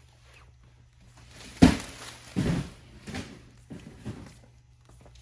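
Boxed items being handled and set down: a sharp thump about a second and a half in, a second knock soon after, then a few softer knocks and cardboard rustles.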